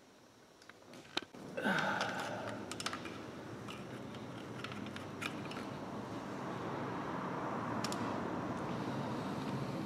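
A microfibre cloth being rubbed and pushed around a motorcycle's engine, a steady rustling that starts about two seconds in and grows a little louder, with a few sharp clicks through it.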